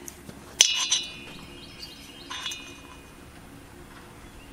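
A metal part clinks sharply and rings for a couple of seconds, with a second, lighter clink and ring a little over two seconds in. Faint bird chirps come in near the end.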